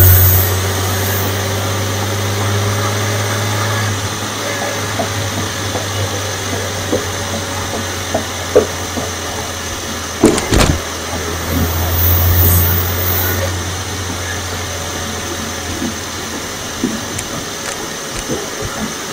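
Supercharged V6 engine of a 2016 Audi S4 with a stage 1 tune and aftermarket intake, heard from under the engine, running steadily with a deep hum and faint tones drifting slowly in pitch. The hum is louder for the first few seconds and again around twelve seconds in, with a few sharp knocks about ten seconds in.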